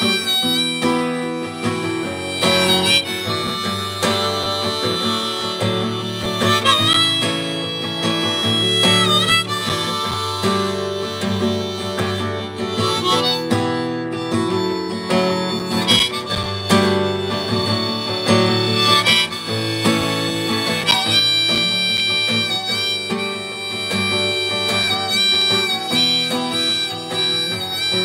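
Harmonica solo: a melody of held notes played on a rack-mounted harmonica over acoustic guitar accompaniment.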